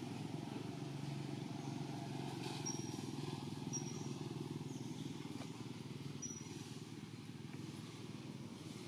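Steady low rumble of a distant motor vehicle engine, fading somewhat about five seconds in, with short high peeps recurring every second or so.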